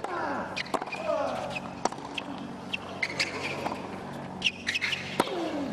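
Tennis rally on a hard court: racquets strike the ball five or six times, roughly one shot every second and a quarter, with shoes squeaking on the court between shots over a low steady crowd hum.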